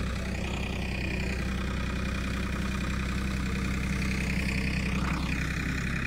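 Fishing boat's engine running steadily.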